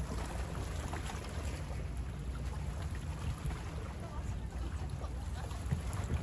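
Small waves of the bay lapping and splashing against the shore, with a few faint splashes here and there, over a steady rumble of wind on the microphone.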